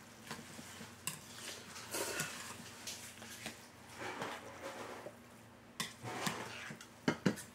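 A person slurping noodles and drinking broth from a steel bowl, with short slurps and sips, then two sharp metallic clinks near the end.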